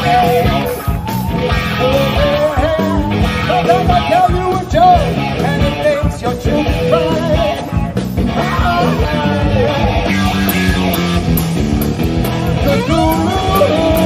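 Live rock band playing: a singer's wavering voice over guitar and a steady beat.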